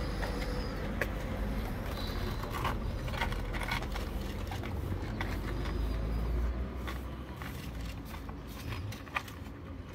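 Hand brush sweeping sand off brass paving plaques into a metal dustpan, in a run of short, scratchy strokes. A low rumble underneath drops off about two-thirds of the way in.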